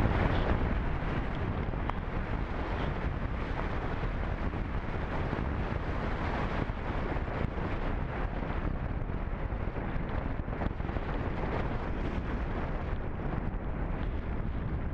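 Steady rush of air over the microphone of a camera riding on an unpowered radio-controlled slope-soaring glider in flight. It is a little louder in the first second, then evens out.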